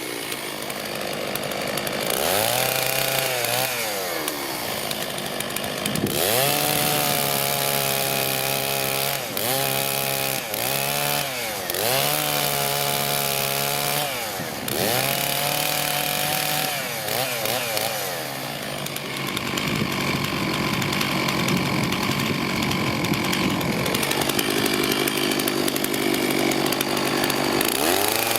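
Two-stroke chainsaw cutting firewood. Its engine pitch drops and climbs back again and again as it bogs into cuts and frees up. In the last third it runs more steadily at high speed through a longer cut.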